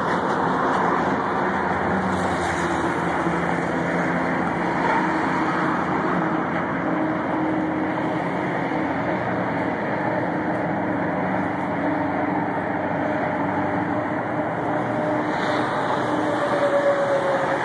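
Steady freeway traffic noise from cars and trucks passing close by, tyres and engines blending into one continuous rush.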